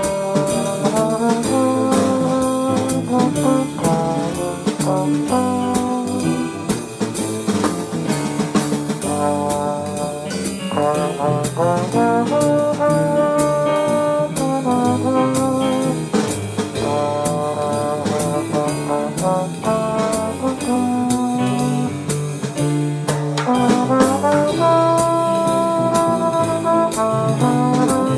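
Jazz quartet playing, with a trombone out front on the melody over piano, double bass and drums. The drums keep a steady beat.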